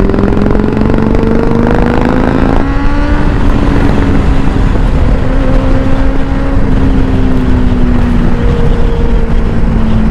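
Motorcycle engine accelerating with its pitch climbing, then dropping sharply about two and a half seconds in as it shifts up a gear, and pulling on steadily. A constant rushing noise runs underneath.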